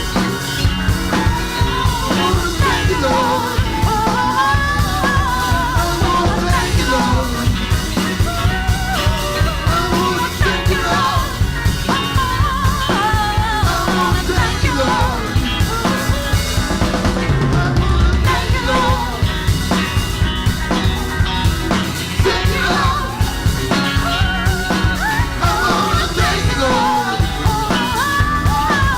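Live rock band playing a gospel-rock song, with a steady drum-kit beat and a wavering melodic lead line above it.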